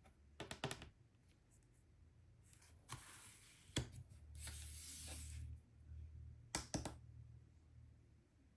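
Oracle cards being handled and shuffled: a few light snaps and clicks of card stock, with about a second of sliding, rustling shuffle in the middle.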